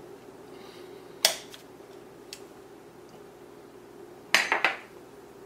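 Table knife clinking against a ceramic plate while scooping butter: one sharp clink about a second in, then a quick cluster of clinks about four seconds in as the knife is put down, over a faint steady hum.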